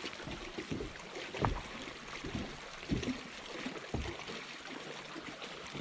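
Fishing boat sitting on the lake: water lapping at the hull and soft irregular knocks against the boat, over a steady low hiss of wind and water.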